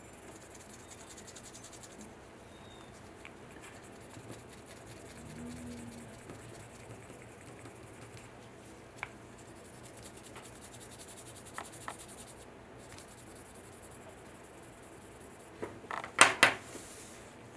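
Soft, faint scratching of a small sanding stick rubbed back and forth over the facet of a 3D-printed resin diamond, with a few small clicks. About sixteen seconds in, a quick cluster of sharp clacks, the loudest sound, as the stick is set down on the table.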